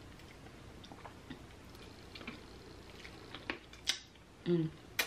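Scattered small clicks and cracks from a cooked lobster claw being picked apart by hand and eaten, with a few sharper snaps near the end. A short closed-mouth "mm" hum comes shortly before the last snap.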